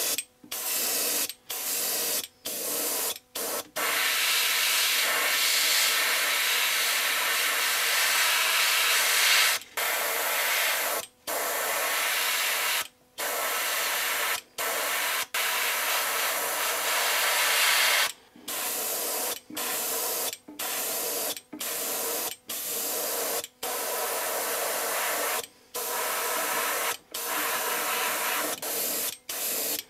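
Airbrush hissing in repeated sprays that start and stop abruptly. Most sprays are a second or two long, with one longer pass of about five seconds near the start, as it lays a transparent gray colour coat over the white base.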